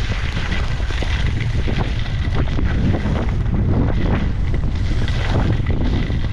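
Wind buffeting an action camera's microphone as its wearer skis downhill, a heavy steady rumble, with the skis hissing and scraping over the snow in irregular swells.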